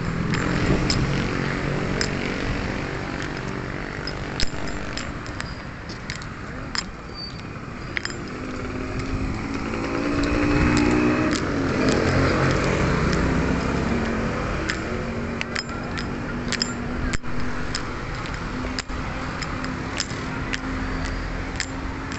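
Street traffic: motorcycle engines running, one passing close and loudest about halfway through, with a steady engine hum after it. Scattered light clicks run through it.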